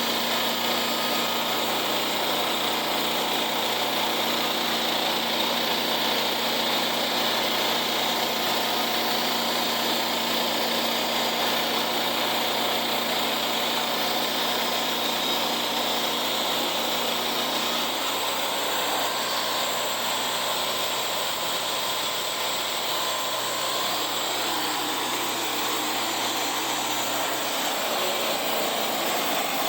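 Engine-driven sawmill running steadily as it cuts through a log. The engine's low hum changes pitch about two-thirds of the way through and again near the end.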